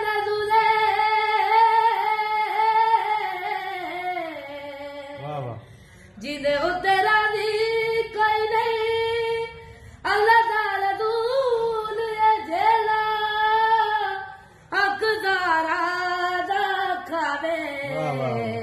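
A boy singing a qaseeda solo, in four long, held, ornamented phrases with short breaks between them.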